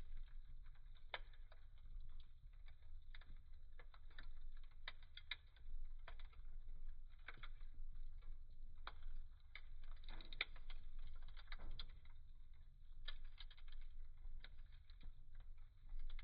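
Wood fire burning in a fireplace, crackling with irregular sharp pops and snaps of the burning logs over a low steady rumble.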